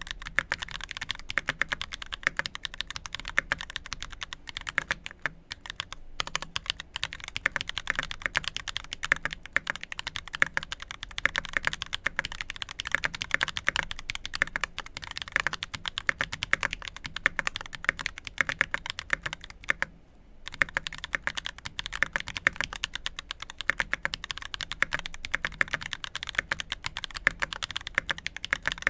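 Fast continuous typing on a 75% mechanical keyboard with lubed YOK Holy Panda tactile switches, an aluminum plate and GMK Space Cadet cherry-profile keycaps: a dense run of keystroke clacks, with a brief pause about twenty seconds in.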